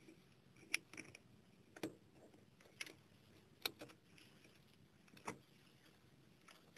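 Faint, scattered small clicks, about seven over six seconds, from an SRT6 tool prying the plastic clips of a Nokia 3100's antenna and power button.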